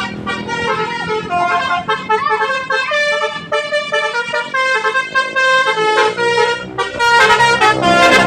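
Bus telolet horn, a set of tuned air horns, playing a quick melody of held notes that change pitch in steps. It swells near the end into a louder chord of several horns sounding at once.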